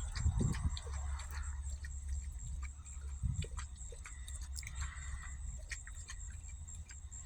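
Faint ambience with a steady low hum and a thin high steady tone, broken by scattered soft clicks and a brief low thump a few seconds in; no thunder is heard.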